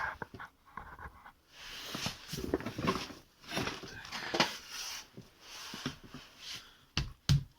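Workshop handling noises from a removed car steering rack being moved and worked on: irregular scraping and rustling with scattered clicks, and a few heavier knocks near the end.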